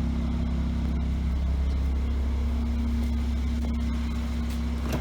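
Car engine idling steadily: a low, even hum with a steady tone above it.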